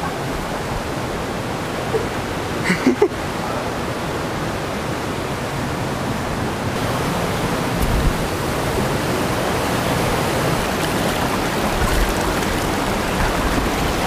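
Steady rush of a rocky mountain creek, an even hiss of running water that grows slightly louder towards the end.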